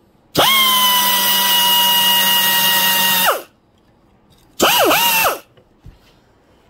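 Power tool spinning a wire brush inside an old Homelite chainsaw's aluminium crankcase to scrub off corrosion scale: the motor whines up to speed, runs steadily for about three seconds and winds down. About a second later it is run again briefly, its pitch dipping and picking back up before it stops.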